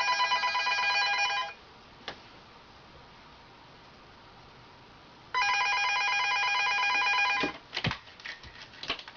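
Wall-mounted corded telephone ringing with a trilling electronic ring. The first ring stops about a second and a half in, and the phone rings again for about two seconds from about five seconds in. Several sharp clicks and knocks near the end come as a kitten paws at the phone.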